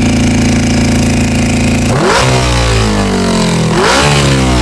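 Honda CBR600 inline-four engine idling on choke, then surging twice, about two and four seconds in, each time jumping up in speed and slowly dropping back. The surges come as carburetor cleaner sprayed on the intake boots is sucked into the engine, the sign of a vacuum leak at the boots.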